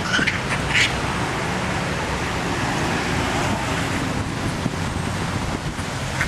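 Steady street traffic noise, with two or three short high squeals in the first second.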